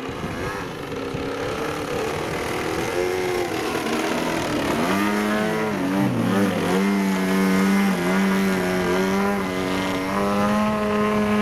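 Radio-controlled aerobatic model airplane's motor and propeller running in flight. The pitch wavers, slides down about halfway through, then holds fairly steady with small rises and dips as the throttle changes.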